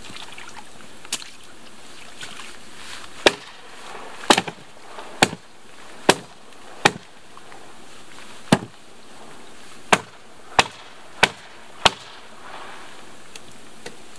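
A long-handled tool striking and chopping at the old dock's wet wooden logs: about a dozen sharp, irregularly spaced blows.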